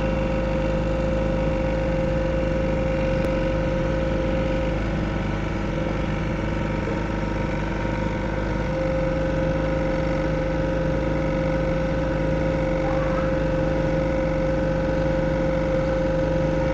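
Excavator's diesel engine running steadily at idle, with a steady high whine over its low running note.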